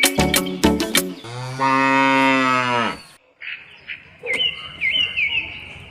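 A cow mooing once, a single long low call of nearly two seconds, right after a short stretch of plucked music. Brief bird chirps follow near the end.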